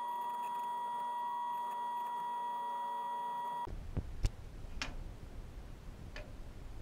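Bandsaw running with a steady high whine while a walnut-and-ash block is fed to the blade. The whine cuts off suddenly about halfway through, giving way to a low rumbling hiss with four sharp knocks as the cut walnut piece is handled beside the saw.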